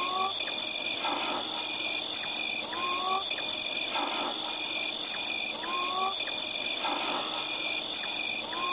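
Night-forest ambience of steady, high insect chirring, with a short rising animal call repeating about every three seconds.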